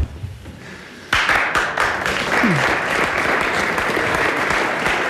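A studio audience applauding, breaking in suddenly about a second in.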